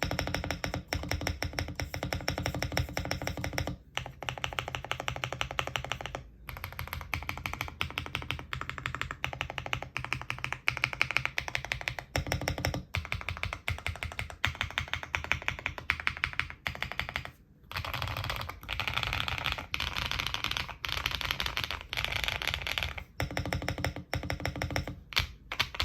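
Fast, continuous typing on a Zuoya GMK81 mechanical keyboard with stock HMX Xinhai switches, a polycarbonate plate, full case and plate foam and PBT keycaps: a dense run of keystroke clacks with a muted, creamy sound, broken by brief pauses about four, six and seventeen seconds in.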